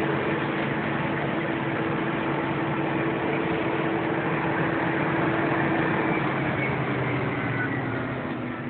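Diesel engine of a large farm vehicle running steadily, its pitch easing slightly lower near the end.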